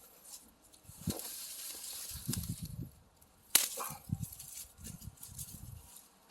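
Water splashing and running off, with low handling knocks and one sharp click about three and a half seconds in.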